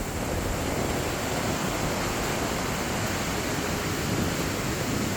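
Steady rush of rough sea surf breaking on the beach, mixed with wind on the microphone.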